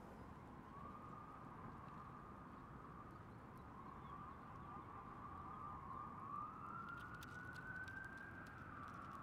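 Faint distant siren over a low steady background rumble. Its tone wavers, warbles quickly around the middle, climbs slowly and then falls away near the end.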